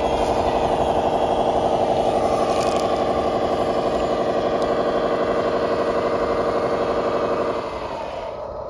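Simulated diesel engine sound from an RC wheel loader's ESP32 sound controller, played through its onboard speaker: a steady pulsing engine note at raised revs that drops back quieter about three-quarters of the way through.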